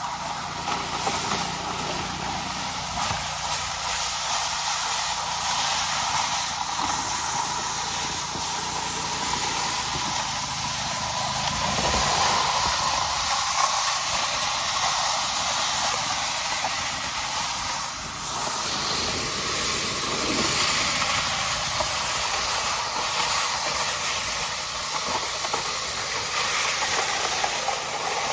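A vehicle driving, with a steady hiss of tyre and road noise over a low engine hum.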